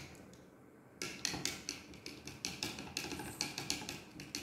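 Steel spoon clinking against the inside of a glass tumbler while stirring a drink with ice cubes to dissolve the sugar: quick light taps about four a second, starting after a short pause about a second in.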